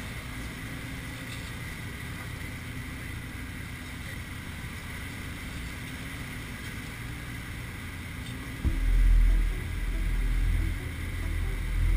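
Steady drone of a DC-3's twin radial engines heard inside the cabin. From about nine seconds in, a loud, uneven low rumble of wind buffets the microphone as the line nears the open jump door.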